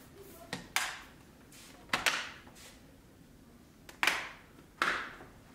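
Plastic clips of an Alienware 17 R4 laptop case snapping into place as the case is pressed down by hand: four sharp snaps, spaced one to two seconds apart.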